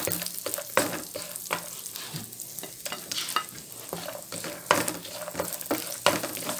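Chopped almonds and walnuts sizzling in desi ghee in a non-stick frying pan, being roasted until crisp, while a wooden spatula stirs them with irregular scrapes and knocks against the pan.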